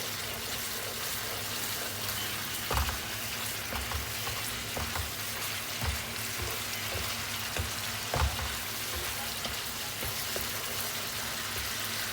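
Balado chili paste sizzling in oil in a pan, with a spatula knocking and scraping against the pan now and then.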